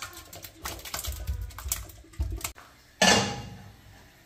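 Cooked eggplant being scraped out of one steel pot into another, with metal clicks and scrapes. About three seconds in comes a single sudden loud noise that dies away over about a second.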